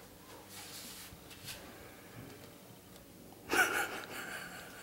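Quiet room tone, then about three and a half seconds in a person's sharp, breathy gasp.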